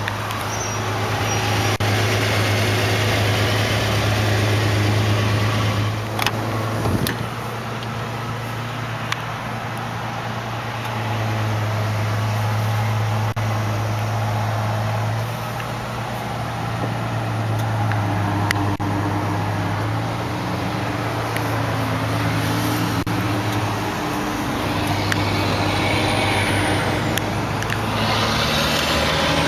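1991 Chevrolet S10 pickup's engine idling steadily, with wind noise on the microphone and a few sharp knocks, the loudest about six seconds in.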